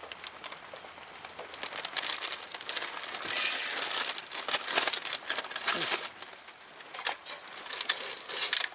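Plastic packaging crinkling and rustling as it is handled: a zip-top bag of meat and a clear plastic food tray. The crinkling is dense through the first half, then breaks into separate sharper crackles.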